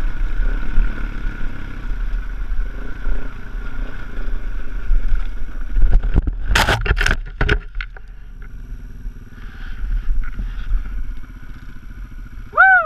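Dirt bike engine running with wind noise on the rider's camera. About six and a half seconds in comes a cluster of loud, sharp impacts as the bike goes down on the rocky trail. After that the engine runs more quietly and steadily, and a short falling cry is heard near the end.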